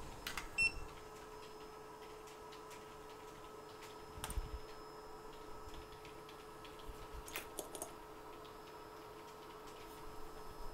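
Quiet workbench room tone: a steady electrical hum with a few scattered light clicks of small hand tools against the board, and one short high-pitched ping about half a second in.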